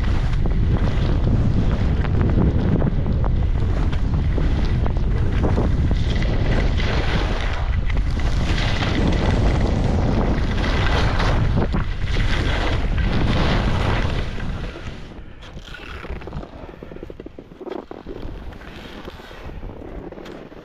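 Skis scraping and carving through snow at speed, swelling with each turn, under heavy wind rumble on the camera's microphone. About fourteen seconds in the rush drops off sharply as the skier slows, leaving softer scuffing of skis in the snow.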